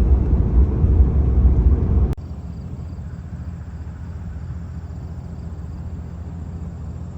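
Car road noise heard from inside the moving vehicle: a loud, steady low rumble. About two seconds in it cuts off abruptly and gives way to a quieter steady low hum with a faint high whine.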